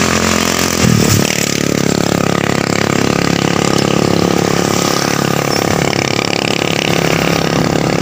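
Motorcycle engine running steadily while riding, with rushing wind and road noise. The engine note dips and shifts briefly about a second in.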